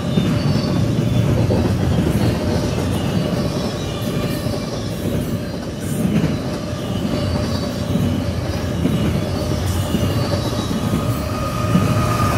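CSX double-stack intermodal freight train rolling past: a steady loud rumble of steel wheels on rail with a thin wheel squeal over it. A higher steady tone comes in near the end.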